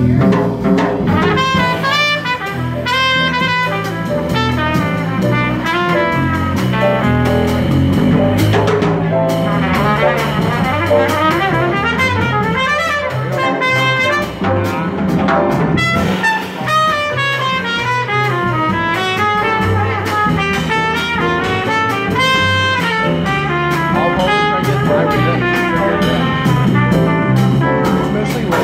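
Live small-group jazz: a trumpet plays a melodic solo over a plucked upright double bass and a drum kit.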